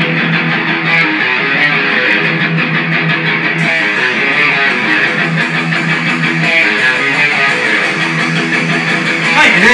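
Instrumental intro of a guitar-led rock song: strummed guitar playing steadily, with the sound brightening about a third of the way in.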